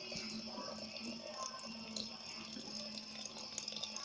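Water running into a bottle, filling it up.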